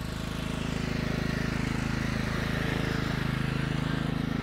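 Riding lawn mower's small engine running steadily as it comes closer, slowly growing louder.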